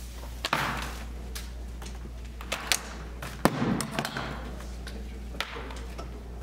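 Scattered knocks and thuds over a steady low hum. The loudest come about half a second in and about three and a half seconds in, with smaller taps in between.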